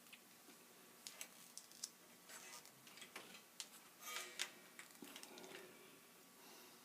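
Near silence with faint, irregular small clicks and taps, the sound of a battery and test probes being handled on a battery tester.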